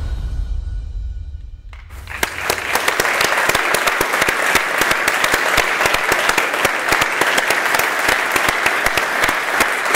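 Music with a deep bass ends about two seconds in, and an audience breaks into steady applause.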